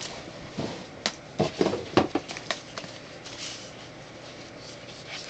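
Packaged fireworks being handled: a string of light knocks and rustles of cardboard and plastic wrap over the first couple of seconds, then only faint handling noise.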